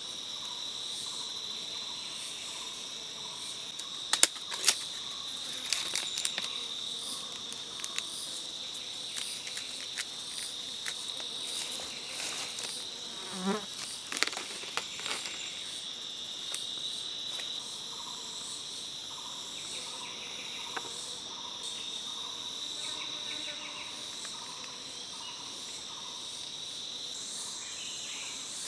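A steady chorus of forest insects makes a high-pitched drone. Several sharp clicks or snaps cut through it between about four and fifteen seconds in.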